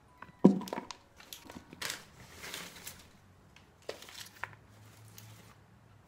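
Bunches of grapes dropped into a plastic bowl, a sharp knock about half a second in, then the bag they are lifted from crinkling and rustling, with a few softer knocks of grapes landing.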